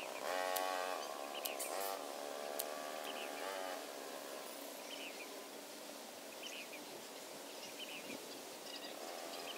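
Outdoor ambience with a few short bird chirps and a faint hiss of insects, and brief voice-like calls in the first few seconds.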